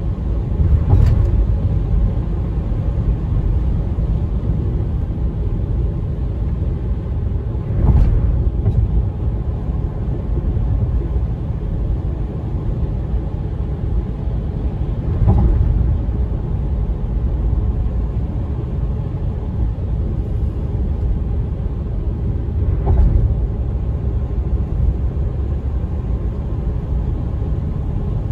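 Road noise inside a moving car's cabin: a steady low rumble of tyres and engine, with a brief thump about every seven seconds, four in all.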